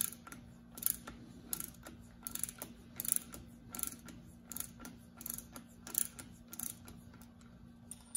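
Ratcheting wrench clicking in short bursts, about one stroke every 0.7 s, as it is swung back and forth on a bolt. The bolt and washers are being drawn tight to press a hard polyurethane shock bushing into the shock eye.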